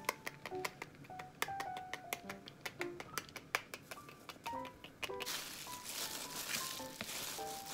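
Light background music of short plucked notes, with a run of quick light ticks through the first five seconds. From about five seconds in comes a steady rustle: a hand in a thin plastic glove rubbing flour into cod pieces on paper towel.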